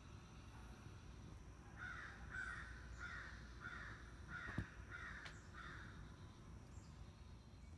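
A distant crow cawing, a run of about seven harsh caws in quick succession, with a sharp click about four and a half seconds in.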